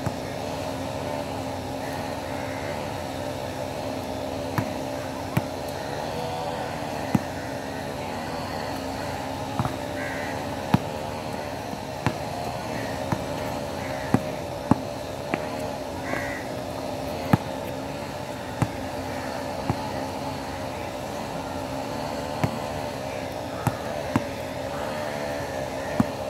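A basketball bouncing on an outdoor hard court: single sharp bounces at uneven intervals, around twenty in all, over a steady background hum.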